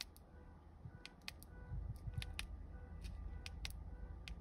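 Several light clicks, some in quick pairs, from the buttons of a new Toyota smart key fob being pressed; the car makes no lock sound in reply, and the fob may need resynchronizing.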